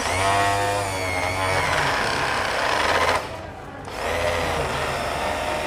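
Electric vibrating sander's motor run with its sanding base removed, as a test of whether the motor turns. It runs for about three seconds, stops, and starts again about a second later.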